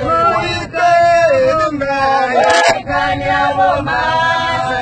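Voices singing a chant-like song loudly, with long held notes that slide in pitch, inside a moving minibus with road rumble underneath.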